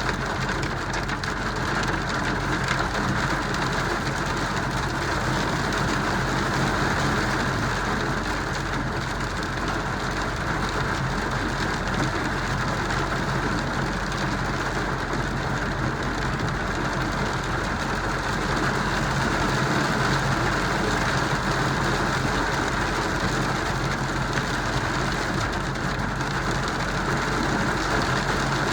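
Hailstorm downpour: hail and heavy rain pelting down steadily, a dense unbroken patter.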